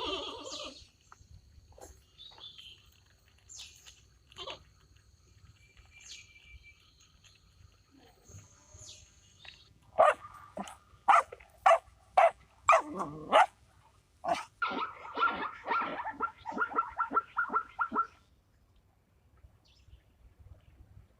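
A dog barking. About halfway through comes a run of sharp barks roughly two a second, followed by a quicker string of shorter, higher yaps lasting a few seconds.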